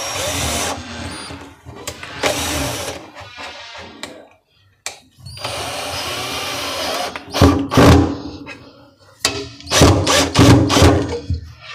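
Cordless drill-driver driving screws into a wooden packing strip, running in several short spurts. In the second half come loud, sharp clicks or knocks as the screws are seated.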